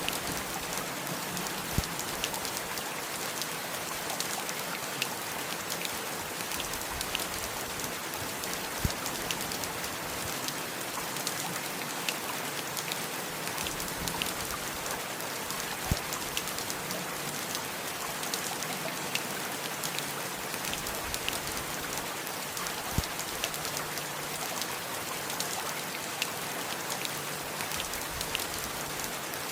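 Steady heavy rain falling: a dense, even hiss sprinkled with the sharp ticks of individual drops, and now and then a heavier drop landing with a dull thump.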